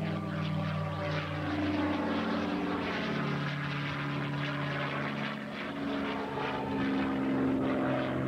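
A TF-51 Mustang's Packard Merlin V-12 engine and propeller running at display power as the fighter maneuvers overhead, the engine note shifting up and down in pitch several times.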